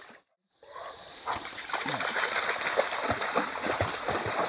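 Hounds wading and splashing in a shallow creek, with the water running. The sound drops out briefly just after the start.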